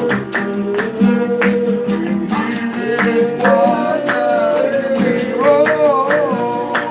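A man singing a slow worship melody with long held, wavering notes over a strummed acoustic guitar.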